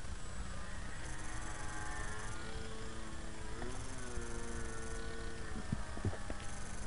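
Radio-controlled foam airplane's motor and propeller whining in flight, its pitch gliding up and down with throttle over a steady low rumble. A couple of brief clicks sound near the end.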